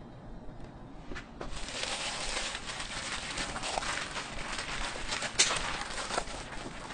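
Thick red chili paste sauce being mixed by gloved hand in a stainless steel bowl: a dense, wet churning with many small clicks, starting about a second and a half in, with one sharper smack about five and a half seconds in.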